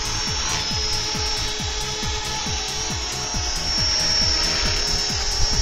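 Electric 450-size RC helicopter, the XHeli Exceed Blue Ray, running: a steady high motor whine over a regular low pulsing of the rotor, about four pulses a second.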